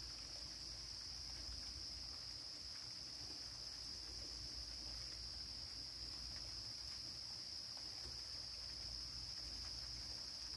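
Crickets trilling in a steady, unbroken high chorus, with a low rumble underneath.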